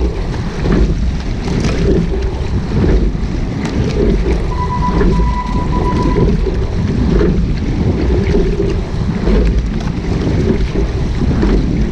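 Wind buffeting the microphone over water rushing along the hull of a rowing shell under way, with the pulse of the strokes and a few light knocks. About four and a half seconds in, a steady beep-like tone sounds for under two seconds.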